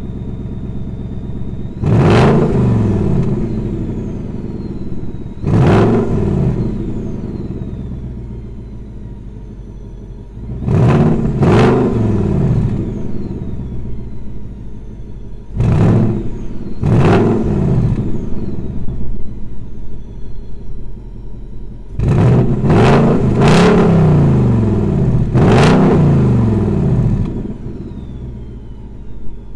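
Stock 2021 Ford Mustang GT's 5.0-litre V8 idling through its quad-tip exhaust and being revved in short throttle blips, about nine in all, some in quick pairs, each climbing and falling back to idle.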